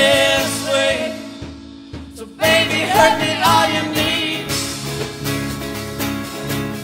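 Live rock band: a woman singing over bass guitar and guitar. The music thins out and almost stops about two seconds in, then the band comes back in sharply with her voice, and the rest goes on with steady strummed beats.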